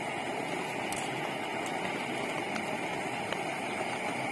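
A pot of oyster mushrooms and noodles cooking on a stove: a steady boiling, hissing noise with a few faint ticks.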